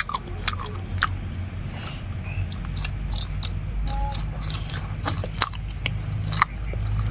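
Close-miked chewing and biting of pork intestine cooked with cabbage: scattered wet mouth clicks and small crunches over a low steady hum.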